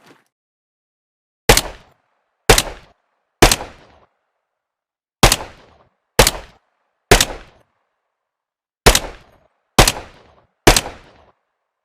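M3A1 grease gun (.45 ACP submachine gun) firing nine separate single shots in three groups of three, about a second between shots, each crack followed by a short echoing tail.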